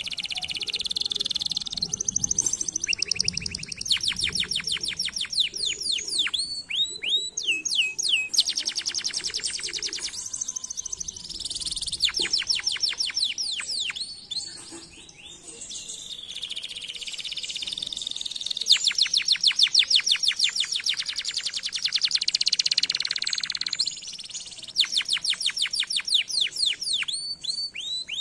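Domestic canary singing a long song: fast trills of rapidly repeated high notes, alternating with downward-sweeping notes, with short pauses between phrases.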